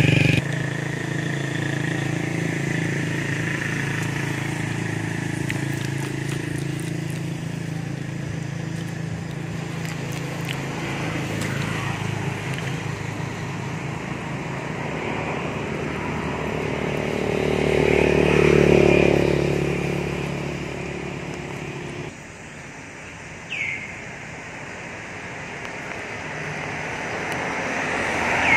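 A motor engine running steadily with a low hum. It swells louder about eighteen seconds in, then drops away abruptly about twenty-two seconds in. A short, high, falling chirp comes a little after.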